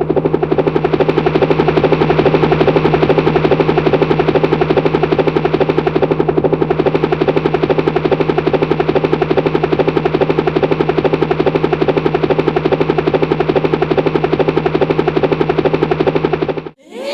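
A machine's rapid, steady rattle, many pulses a second over a constant low hum, cutting off suddenly near the end.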